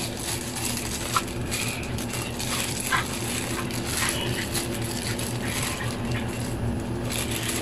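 Clear plastic bag crinkling and rustling as a coiled power cord and adapter are handled and worked out of it, with scattered small crackles, over a steady low hum.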